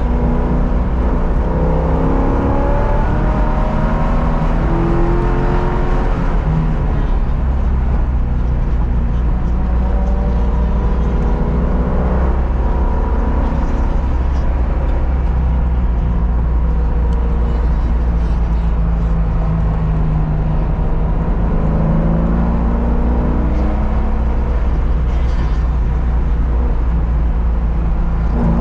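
Car engine under hard acceleration on a race track, its pitch climbing and dropping back again and again as it revs up and shifts or lifts. Loud and continuous throughout, with a steady low rumble beneath.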